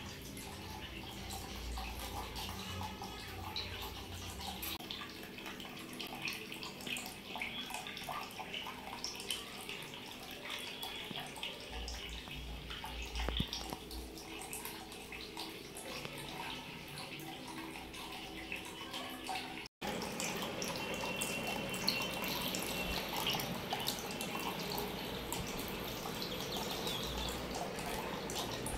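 Steady trickling and splashing of water falling from the small spouts of a homemade aquarium waterfall into the tank, with many small drips and bubbles. The sound drops out briefly about twenty seconds in, then carries on.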